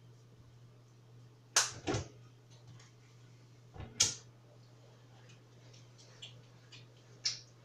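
A few sharp knocks and clicks of kitchen items being handled on a counter, the loudest about one and a half and four seconds in, with fainter ticks between them, over a steady low hum.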